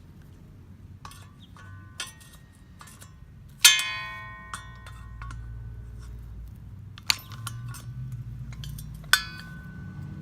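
Metal tools striking and clinking against the steel machete blade and the vise: a handful of sharp, ringing metallic hits, the loudest about a third of the way in, with lighter clinks before and after.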